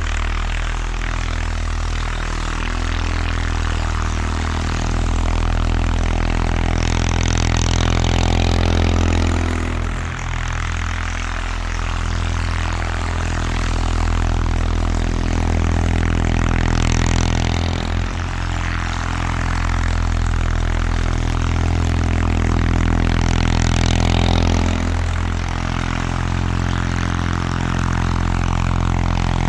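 1979 Bolens HT-23 garden tractor's 23 hp opposed-twin Kohler K582 engine running steadily under load while plowing snow, its note dipping briefly a few times as the tractor changes direction.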